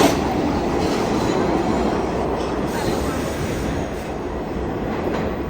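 New York City subway train running through a station, a loud steady rumble of wheels on rail that eases slightly about four seconds in.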